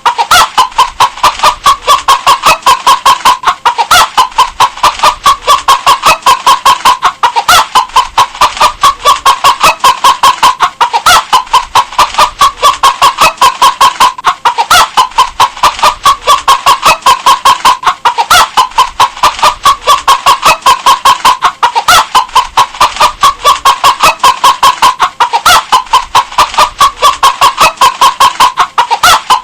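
Hen clucking in a rapid, steady run of about four clucks a second, with a slightly louder cluck recurring every three and a half seconds or so, as a short loop repeating.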